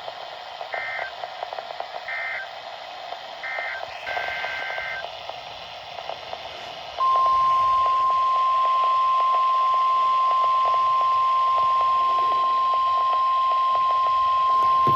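NOAA Weather Radio Emergency Alert System tones over radio hiss: three short two-pitch SAME data bursts marking the end of the previous message, then a longer data burst about four seconds in. About seven seconds in comes the loud, steady 1050 Hz warning alarm tone, which announces a new warning.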